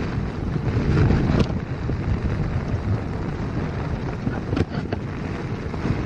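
Storm wind buffeting and flapping a tent's fabric in heavy rain, heard from inside the tent, with wind rumbling on the microphone. A few sharp knocks come through, one about a second and a half in and two more near the end.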